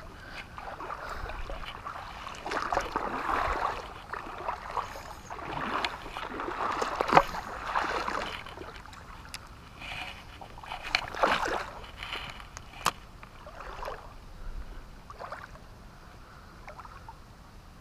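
Shallow river water sloshing and splashing in irregular bursts, as of a person wading through it, with a couple of sharp clicks in between.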